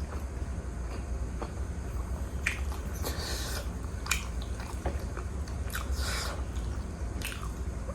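Close-miked biting and chewing of juicy pork momo dumplings, with short wet mouth sounds breaking in every second or so.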